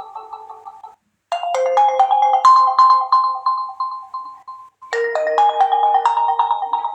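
Realme C21Y phone ringtone playing: a short melody of struck, bell-like notes that ring and fade. The phrase stops about a second in, then starts again twice, about three and a half seconds apart.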